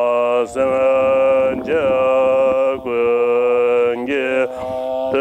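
Two Tibetan Buddhist monks chanting a prayer together in male voices: long held syllables on a steady pitch, in phrases broken by short pauses every second or so.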